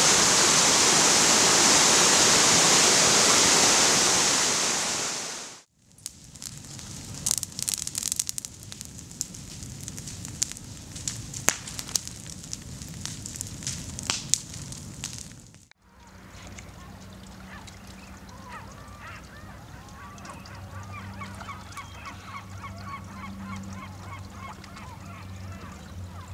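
Loud rushing water, as from a waterfall, that fades out about five seconds in. Then comes a quieter stretch of scattered sharp clicks and crackles. After a break, waterfowl call repeatedly over a steady low hum.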